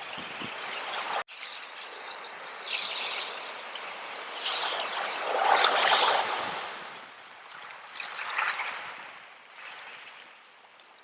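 Seawater washing over shells in surges of hissing, trickling noise, each swelling and fading, the loudest about six seconds in. The sound cuts out for an instant a little over a second in.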